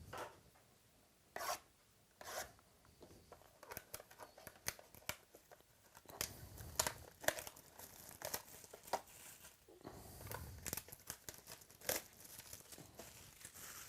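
Trading-card packaging being torn open and handled: irregular tearing and crinkling of wrapper, with short clicks and rustles.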